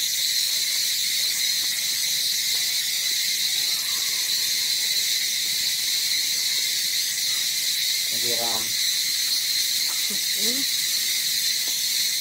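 Steady, high-pitched insect chorus. About two-thirds of the way through, a short pitched call is heard, and a brief rising call follows a couple of seconds later.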